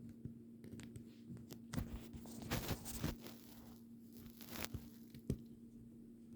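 Plastic LEGO Technic parts being handled and fitted together: scattered small clicks and rustling, busiest a couple of seconds in, with one sharp click near the end, over a steady low hum.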